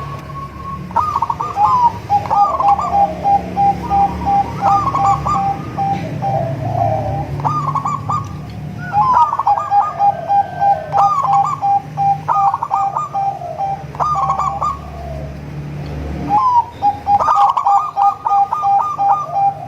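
Perkutut (zebra doves) cooing, phrase after phrase every second or two, with a fast pulsed note running between the phrases. A low hum sits beneath and drops away near the end.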